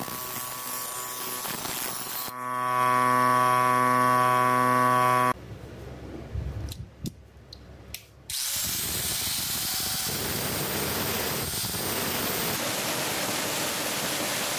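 A bench polishing motor runs with a steady hum while a steel knife blade is held to its wheel, getting louder about two seconds in. After a short quieter gap with a few clicks, an angle grinder with a sanding disc runs on the blade as a steady hiss.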